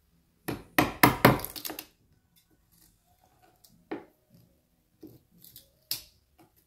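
Wood chisel cutting into the edge of a wooden door to clear the recess for a lock bolt: a quick cluster of sharp knocks near the start, then single knocks about four and six seconds in.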